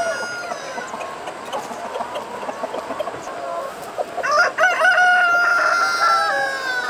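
Rooster crowing: a long drawn-out crow starts about four seconds in and falls slightly at its end, with the tail of an earlier crow at the very start and hens clucking in between.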